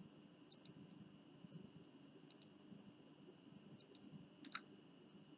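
Faint clicks of a computer mouse, four or so, each a quick double tick of button press and release, the last one the loudest, over a faint steady high whine.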